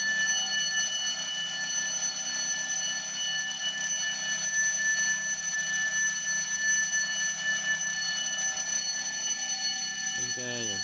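A shop's electronic alarm sounding a continuous, unbroken high-pitched tone.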